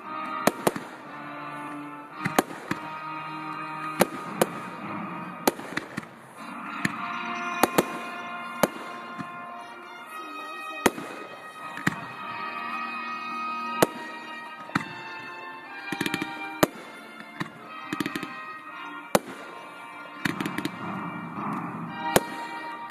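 Fireworks going off over music: sharp bangs of bursting shells, roughly one every second, with quick runs of crackling bangs in the later part.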